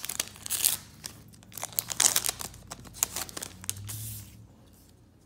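A foil trading-card pack wrapper being torn open and crinkled by hand, a rapid run of crackly rips and crinkles that dies down near the end.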